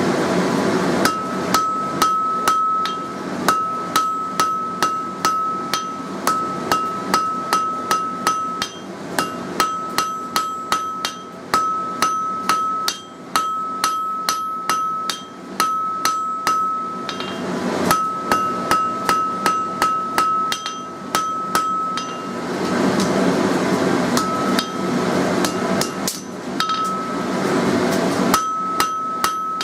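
Hand hammer striking hot mild steel on an anvil, drawing out a taper: long runs of blows about two to three a second, with a steady high ring from the anvil between strikes. The hammering stops briefly twice, leaving a steady rushing noise.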